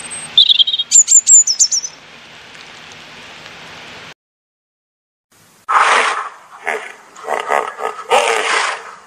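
A European robin sings a short phrase of quick, high chirps and trills. After a short gap comes a harsh, raspy call, repeated about four times, from a greater one-horned rhinoceros.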